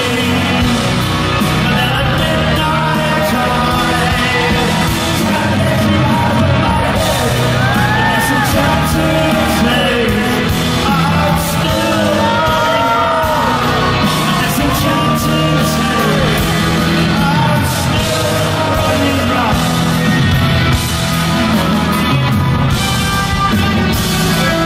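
Live rock band playing, electric guitars, bass and drums, with a man singing lead and yells over the music, heard through the echo of a large arena.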